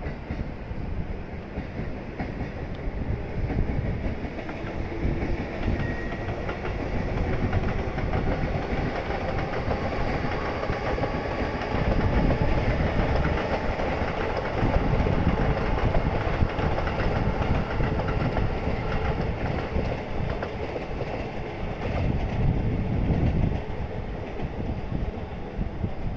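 A JR electric train passing on the tracks below, heard from a height as a steady rumble with wheel clatter. It grows louder about halfway through and eases off near the end.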